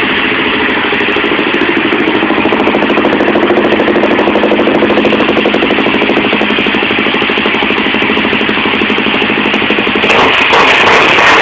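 Honda XRE 300's single-cylinder four-stroke engine idling through an aftermarket Two-Way exhaust, with an even, throbbing beat. About ten seconds in the sound turns abruptly louder and fuller.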